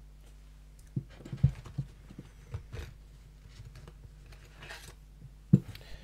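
Light clicks and knocks of a steel padlock and metal lock-picking tools being handled on a tabletop, with a louder knock about a second and a half in and another near the end, over a faint low hum.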